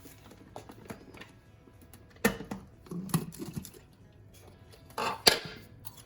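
Kitchen handling sounds: bowls and utensils clattering and knocking, with two loud sharp knocks, one a little over two seconds in and one near the five-second mark.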